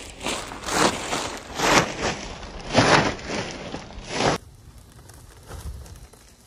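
Black plastic garbage bag being shaken and flapped open, with loud crinkling swishes about four times, cutting off suddenly a little over four seconds in.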